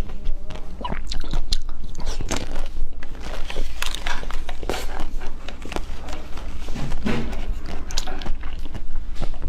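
Close-miked biting and crunching of a brittle-shelled blue egg-shaped food, with many irregular sharp cracks and chewing all through.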